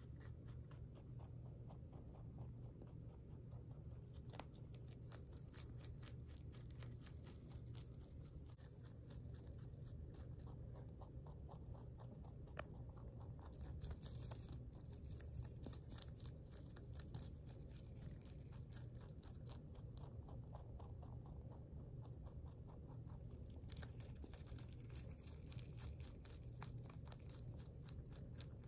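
A rabbit chewing leafy greens: quick, quiet crunching chews, several a second, in spells starting about four seconds in, over a low steady hum.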